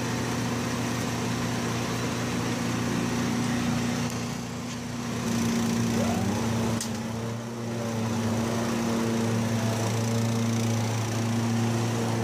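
Small engines of a Kubota ZG222 zero-turn mower and its hitched Cyclone Rake leaf vacuum running steadily, dipping briefly twice, with a higher hum joining about eight seconds in.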